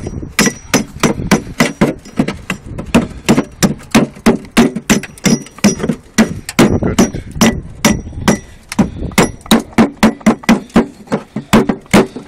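A hand tool striking an old handmade brick again and again, about three sharp knocks a second, chipping off the old dirt to clean the brick by hand for reuse.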